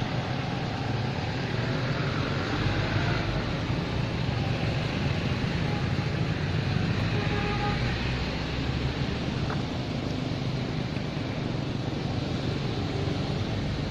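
Steady outdoor background noise: a continuous low rumble with hiss, holding an even level throughout.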